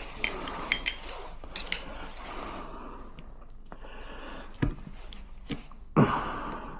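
Door lock hardware and tools being handled: a few sharp metallic clicks, then scattered knocks and one louder thump near the end.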